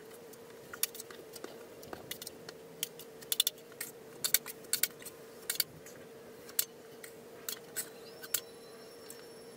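Metal drywall taping knife clicking and scraping against a mud pan and the ceiling while joint compound is spread. The sound is a run of irregular sharp clicks and short scrapes over a steady low hum, and a faint high thin whine starts near the end.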